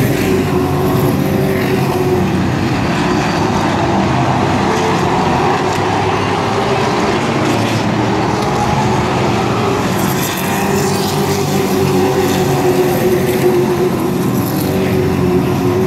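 A field of short-track race trucks' engines running together as the pack circles the oval, a steady layered engine note heard from the grandstand.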